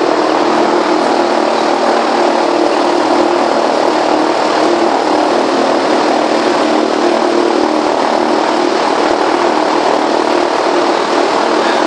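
Airboat engine and propeller running steadily while the boat moves slowly, a loud, even drone with a steady low hum in it.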